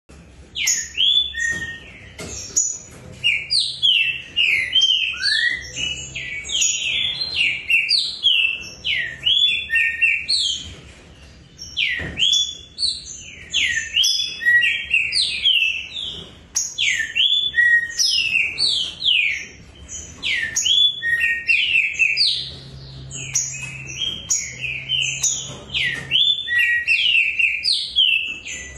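Two caged green-winged saltators (trinca-ferro) singing against each other: rapid, loud strings of short sweeping notes that overlap. There are brief lulls about twelve and twenty seconds in.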